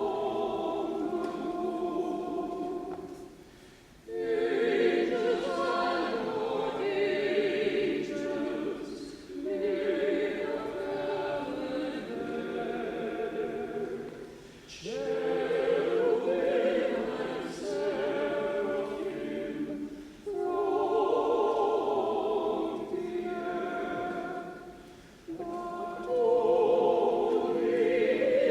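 Church choir singing in sustained phrases of about five seconds, with short pauses for breath between them.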